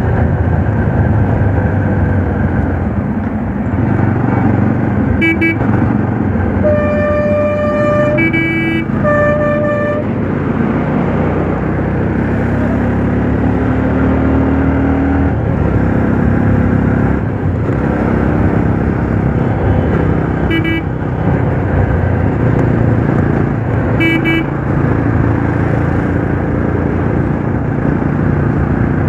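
Yezdi Roadster single-cylinder motorcycle engine running under way in traffic, its note rising about halfway through. Vehicle horns honk several times: a short toot about five seconds in, two longer blasts from about seven to ten seconds, and two more short toots near 20 and 24 seconds.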